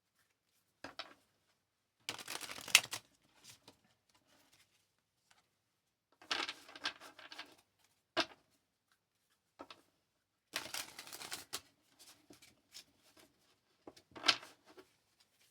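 A tarot deck being shuffled by hand: several short bursts of card noise with quiet gaps between them.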